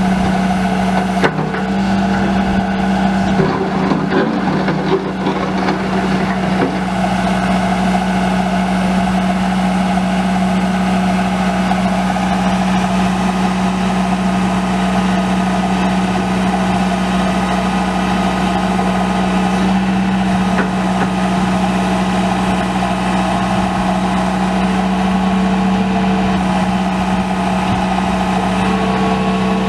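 John Deere 120 excavator's four-cylinder turbo diesel engine running at a steady speed, with a few metallic clanks in the first several seconds.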